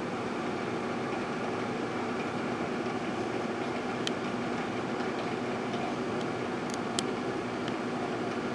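Microwave oven running with a steady hum while it heats a cup of yoghurt, with a few faint clicks about four and seven seconds in.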